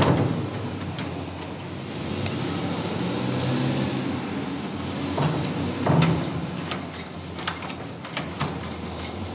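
Keys jangling and clicking in a door lock, with repeated small metallic clicks and rattles as the door is unlocked.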